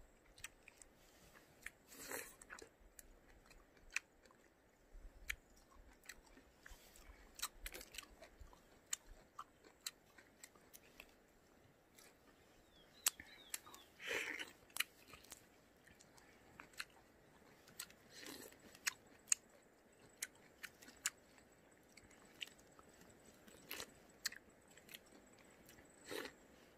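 A person biting and chewing peeled citrus fruit: faint wet chewing and many small mouth clicks, with a few louder bites about two, fourteen, eighteen and twenty-six seconds in.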